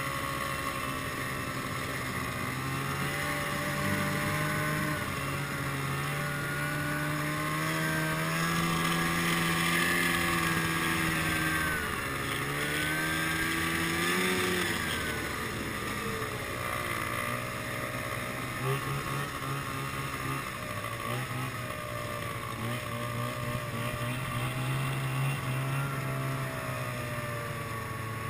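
Snowmobile engine running, heard from on board, its pitch rising and falling as the throttle changes: it climbs to a peak about halfway through, then drops back sharply.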